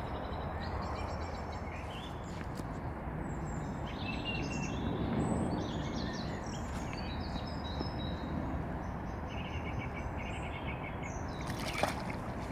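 Small birds chirping and trilling over a steady outdoor hiss. Near the end comes one short, sharp splash as a released mirror carp kicks away out of the sling into the lake.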